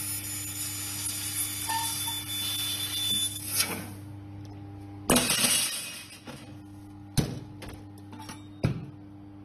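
Handheld fiber laser welder working on stainless steel: a steady machine hum with a hiss over it that stops about four seconds in. Then comes a short loud rush of noise, and a few sharp metallic knocks as the steel workpiece is handled.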